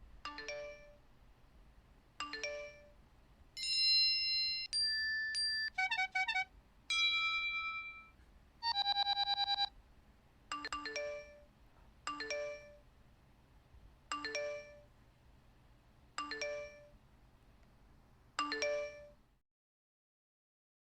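Alarm and ringtone sound effects. A bell-like electronic chime sounds twice, two seconds apart. Then comes a run of steady electronic beeps and ringtone tones, one of them pulsing rapidly. Then the chime repeats five times, about every two seconds.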